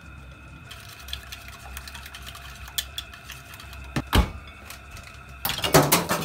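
Wire whisk and bowls clinking and tapping on a kitchen counter in scattered clicks. There is a single loud thunk about four seconds in, then a burst of clattering near the end as the whisk is lifted out of the bowl and set down.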